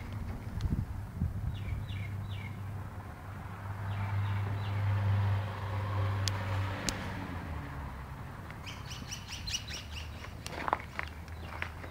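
Small birds chirping in short runs, about two seconds in and again near the end, over a steady low rumble. There are two sharp clicks about six and seven seconds in.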